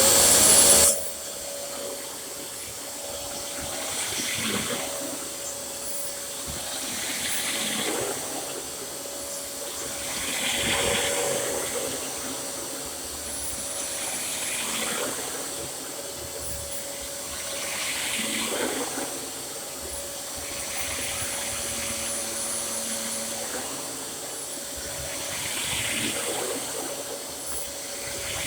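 Two Dyson upright vacuum cleaners running at once: a steady motor whine with a loud surge in the first second, then swelling and easing every few seconds.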